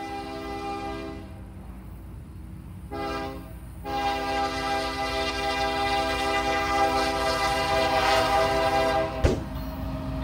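Horn of an approaching Union Pacific freight locomotive, a chord of several tones: one blast ends about a second in, a short blast follows about three seconds in, then a long blast from about four seconds to nine seconds, the short-then-long close of the grade-crossing signal. The horn grows louder as the train nears, with the train's rumble underneath.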